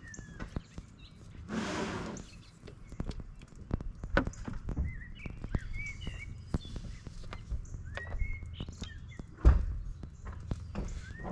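Small birds chirping again and again, over scattered clicks and knocks of hands working on gear, with a short rush of noise about a second and a half in and a heavy thump near the end.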